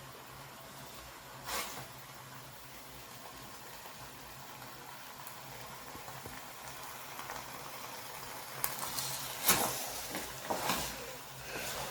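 Pot of sauce boiling on the stove with a steady bubbling hiss. From about eight seconds in come several sharp clattering knocks of a spoon against the pot.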